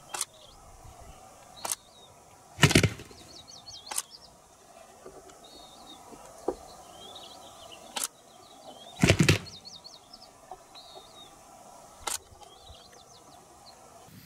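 A strutting Gould's wild turkey gobbler in display making a series of short, sharp feather and wing rattles, with two louder, longer ones about three seconds in and again about nine seconds in. Small songbirds chirp in quick high runs between them.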